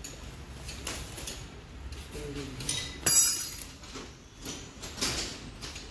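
Metal tools clinking and clanking against a chrome motorcycle handlebar and its clamp as it is fitted: a few separate knocks, the loudest about three seconds in, ringing briefly.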